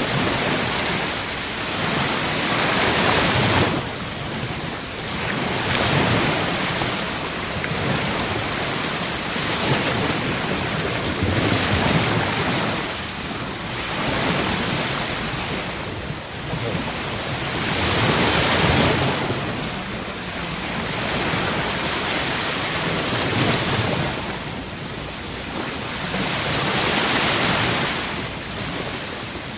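Ocean waves breaking on a shore, the surf swelling and falling back every few seconds.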